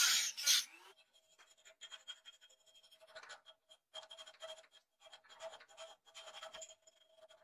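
A rotary tool's cutting disc grinding into a metal sword guard, cutting off about a second in, followed by a needle file scraping inside the guard's slot in quick, uneven strokes, about two a second.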